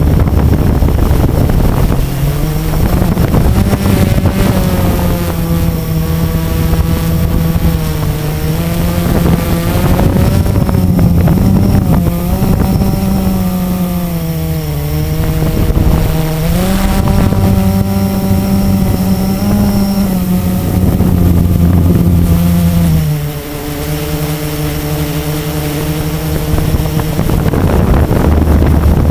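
Blade 350 QX quadcopter's brushless motors and propellers humming, heard from the camera on board, the pitch rising and falling with the throttle and dropping lower near the end. Wind buffets the microphone, strongest at the start and end.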